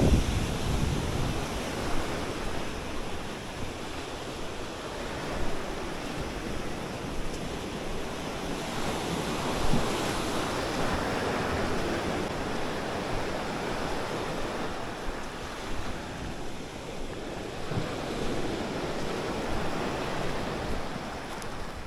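Small waves breaking and washing up onto a coral-sand beach: a steady surf hiss that swells about ten seconds in.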